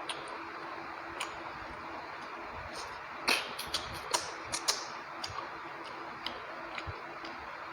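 Close-miked eating sounds of rice and chicken curry: scattered wet mouth clicks and smacks of chewing, with a cluster of louder ones about three to five seconds in, over a steady background hiss.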